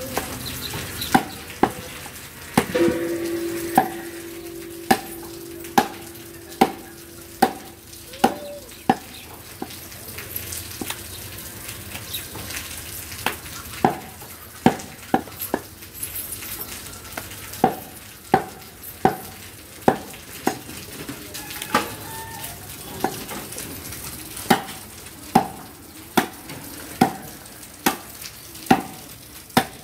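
A heavy knife chopping beef on a thick wooden chopping block: sharp knocks about once a second, in runs with a short break, over steady background noise. A steady tone sounds for about five seconds a few seconds in.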